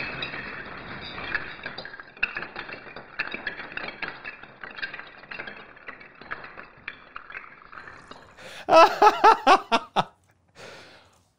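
Hundreds of small 3D-printed plastic pieces clattering onto a wooden tabletop as they spill out of a large printed grid: a dense rattle that thins into scattered clicks and bounces. A man laughs heartily near the end.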